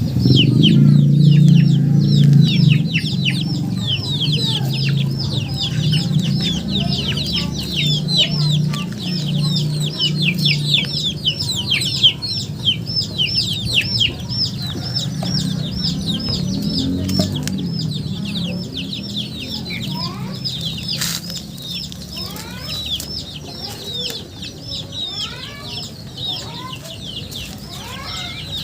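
Chickens peeping: a dense, continuous stream of short, high, falling peeps, many a second. A lower sound runs under them through the first half.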